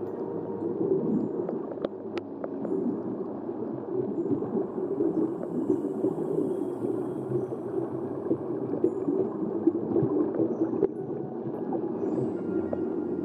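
Muffled underwater water noise picked up by a submerged camera: a steady low rush with scattered small clicks and crackles.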